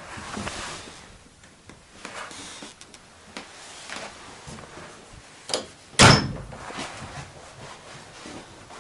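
Scattered light knocks and rustles of handling inside a small trailer, then one loud bang about six seconds in.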